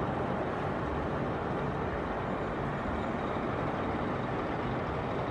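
Heavy multi-wheeled hauler truck running steadily: a low engine hum under an even rushing noise.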